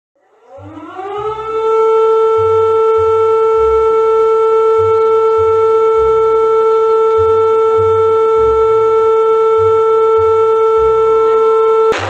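Alarm siren winding up in pitch over about a second and a half, then holding one steady, loud tone until it cuts off suddenly near the end.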